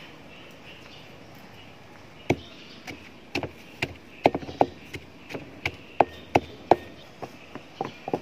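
Wooden pestle pounding garlic, chili and spice paste in a mortar: sharp thuds, two or three a second, starting about two seconds in.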